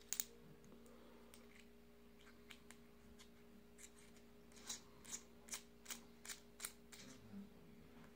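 Faint, sharp clicks and ticks of small tools and kanthal wire being handled on a coil-building jig, coming about two a second in the second half, over a faint steady hum.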